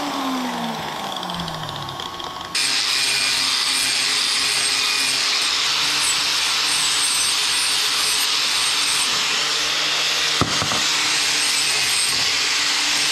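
An angle grinder coasts down, its whine falling steadily in pitch. About two and a half seconds in it gives way to an angle grinder with an abrasive disc grinding the end of a metal rod, a steady loud grinding noise with one sharp click near the end.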